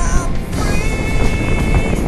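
Wind rushing over the microphone and a Kawasaki Ninja 250's parallel-twin engine running at road speed, with music over it: a wavering melodic note at the start, then a held high note through the middle.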